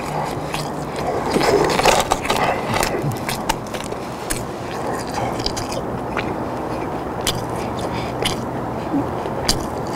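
A person chewing crispy fried chicken: crackling crunches of the fried coating, thick in the first few seconds and sparser after, over a steady low hum.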